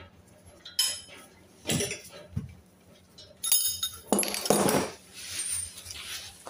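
Metal tools and parts clinking and knocking as a steering rack is worked on under a lifted car: a few sharp separate clinks, the brightest and most ringing about three and a half seconds in, followed by a rougher handling noise.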